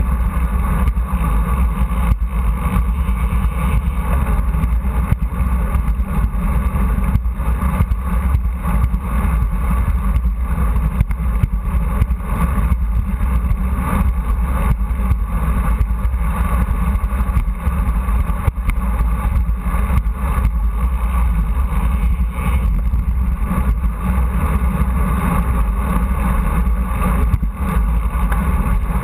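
Wind buffeting the microphone of a bicycle handlebar-mounted camera at riding speed, mixed with road noise from the bike: a steady low rumble.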